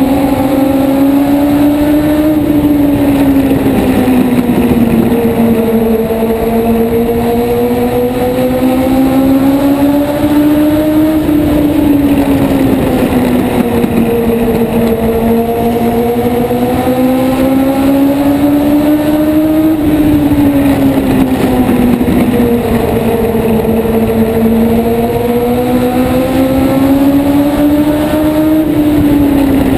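A small oval-track race car's engine, heard from on board at full racing speed, its pitch climbing on each straight and easing off into each turn in a steady cycle of about eight or nine seconds, lap after lap.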